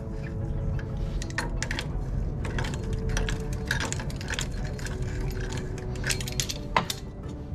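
Irregular metal clicks and scrapes of a wrench working a new hydraulic quick-connect coupler into its fitting on a compact tractor, over a steady low hum.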